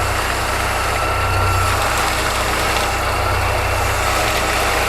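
Chevrolet Niva engine idling steadily with a faint constant whine above it. The click being hunted for, which the listener takes for the skid plate, is not clearly heard here.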